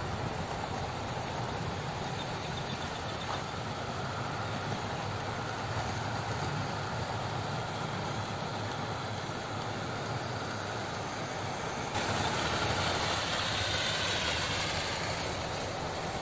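Several OO gauge model trains running on the track: a steady sound of small electric motors and wheels on rail, louder from about twelve seconds in.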